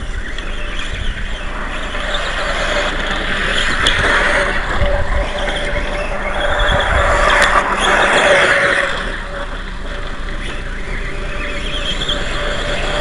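Atomik MM450 radio-controlled motorcycle running through loose dirt: a steady whine under a hiss that swells twice, loudest in the middle, over low wind rumble on the microphone.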